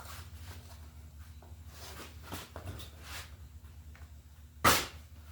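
A steady low hum with a few faint shuffling sounds, then a single sharp knock or clack about four and a half seconds in.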